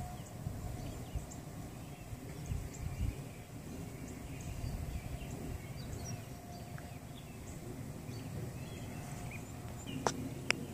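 Outdoor evening ambience: a steady low rumble with faint, scattered bird chirps. Two sharp clicks of the camera being handled come near the end as it is swung.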